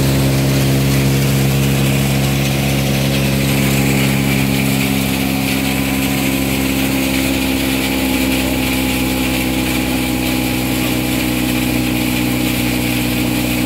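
Engine-driven mobile grain thresher running steadily at constant speed: a continuous engine hum with a hiss of grain and air from the machine.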